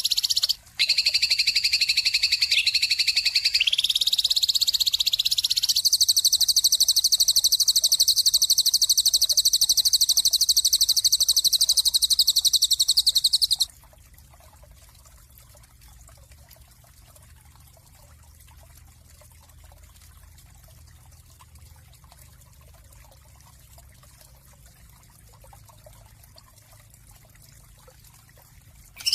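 Bird chirping: a fast, continuous high-pitched trill that shifts pitch a few times and breaks off abruptly about halfway through. Only a faint steady hiss is left after it, until the trill starts again at the very end.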